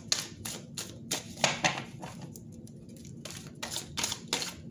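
A deck of tarot cards shuffled by hand: irregular soft clicks and slaps of cards against each other, loudest a little after a second in, with a short lull in the middle.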